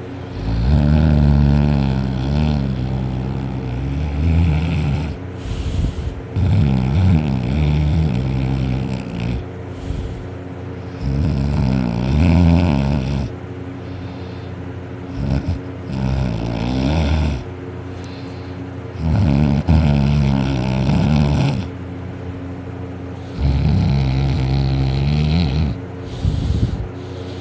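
A sleeping person snoring loudly, with long rasping snores coming in a slow rhythm, one every four seconds or so, with short pauses between breaths.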